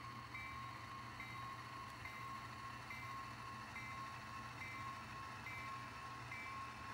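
Faint onboard sound from an HO-scale model GP18 diesel locomotive's sound decoder: a locomotive bell ringing at an even pace, a little faster than once a second, over a steady tone and a low engine hum.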